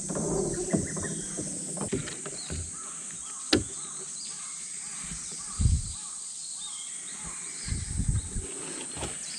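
Outdoor ambience with a steady high insect-like hiss and a few faint chirps. A sharp click comes about three and a half seconds in, and brief low thuds follow later, from handling on the boat.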